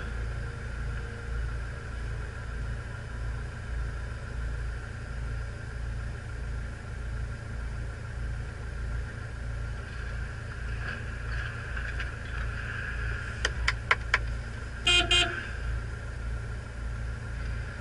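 Low, steady rumble of an idling vehicle engine. Late on there are a few sharp clicks, then two short toots of a vehicle horn.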